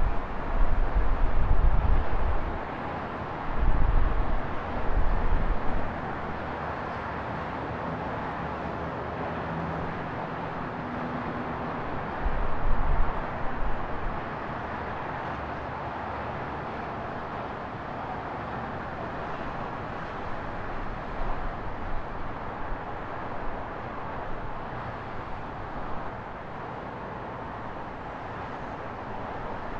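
Steady outdoor traffic and street noise, with wind buffeting the microphone in low gusts during the first few seconds and again about halfway through.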